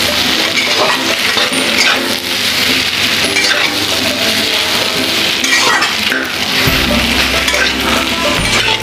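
A spatula stirring and scraping spiced mashed potatoes in a metal kadhai, with repeated clinks and scrapes against the pan over the steady hiss of frying in oil.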